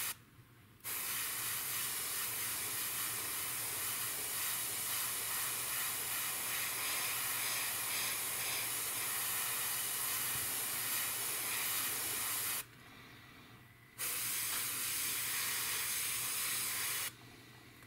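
Airbrush spraying paint: a steady hiss of air and paint in two long bursts, with a pause of about a second and a half between them a little past the middle.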